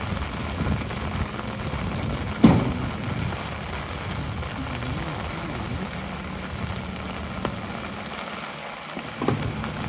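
Steady rain pattering on an umbrella and wet pavement, with a garbage truck's engine running alongside. A single loud bang sounds about two and a half seconds in, and a lighter knock near the end.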